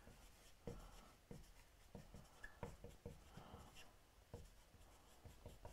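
Marker writing on a whiteboard: faint, scattered short strokes and ticks as the letters are drawn.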